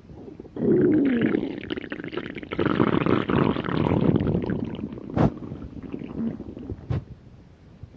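Hungry stomach growling: a long rumbling gurgle comes in about half a second in, wavering in pitch, and slowly fades. Two short sharp pops follow later on.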